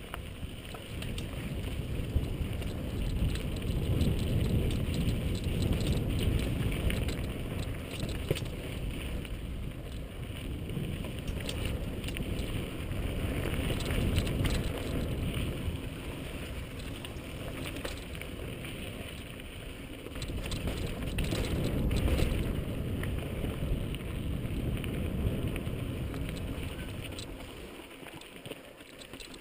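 Wind rumbling on a helmet-mounted camera's microphone as a mountain bike rolls down a rocky dirt trail, with tyres crunching over gravel and sharp clicks and rattles from the bike over rocks. The rumble rises and falls several times and drops away near the end.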